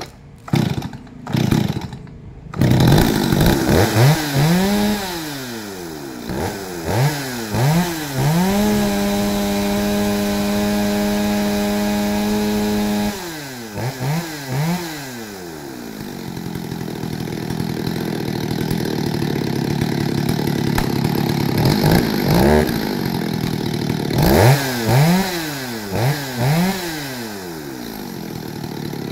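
Stihl 021 two-stroke chainsaw starting about two seconds in, then revved up and down several times. It is held at full throttle for about four seconds, drops back to a steady idle, then is blipped a few more times before settling to idle again.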